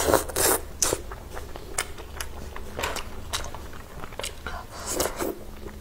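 Close-miked eating: biting into and chewing a soft braised meat-stuffed green pepper, in irregular wet bites and mouth clicks.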